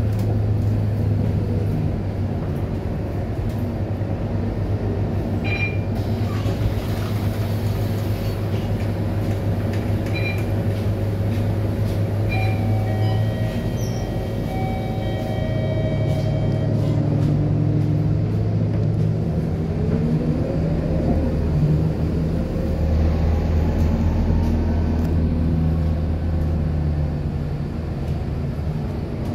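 Interior of a Scania K230UB city bus: its five-cylinder diesel engine runs with a steady low drone, with a few short high electronic beeps and a held electronic tone in the first half. About two-thirds of the way through, the engine note rises as the bus picks up speed.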